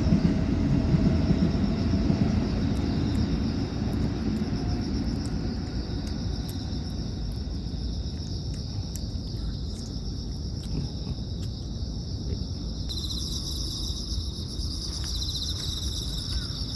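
Insects chirping steadily outdoors, with a louder, fast-pulsing trill joining about three-quarters of the way through, over a low rumbling background noise that is strongest at the start.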